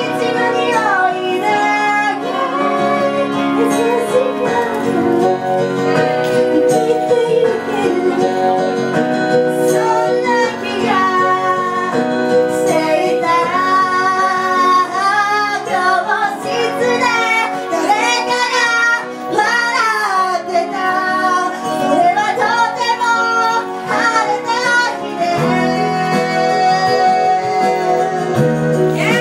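Young female voices singing a pop song live, with instrumental accompaniment.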